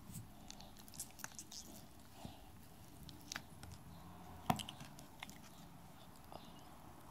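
Slime being squeezed and pressed by hand, giving quiet, scattered sticky clicks and pops, with one sharper pop about four and a half seconds in.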